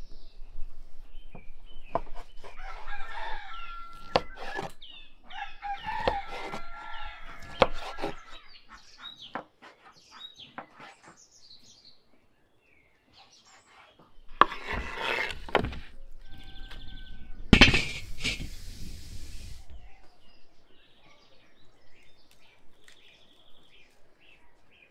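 A kitchen knife cuts through raw beef fat and taps repeatedly against a wooden cutting board. Farmyard fowl call in the background, including a rooster crowing.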